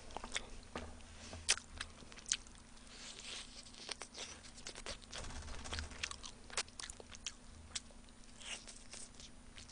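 Close-miked chewing and biting of spicy sauce-coated fried chicken, with several sharp crunches scattered through.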